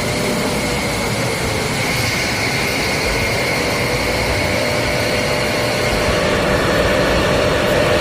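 Jet aircraft engine running steadily: a constant rushing noise with a high whine over it, rising slightly in pitch in the first couple of seconds.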